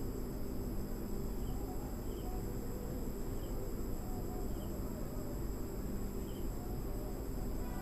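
Steady high-pitched insect trilling, taken for crickets, over a low steady hum, with a few faint light scrapes as a steel spoon stirs onion and mint masala in a steel pressure cooker.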